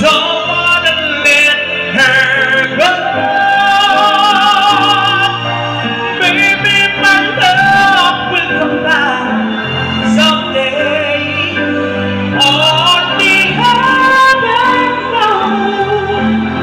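A singer holding long, wavering notes of a love ballad into a microphone over a backing track with bass and drums.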